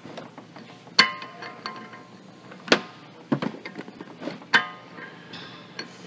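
Steel ball joint press adapter cups knocking and clinking against the steering knuckle and each other as they are set in place by hand. There are four sharp metallic knocks, each ringing briefly.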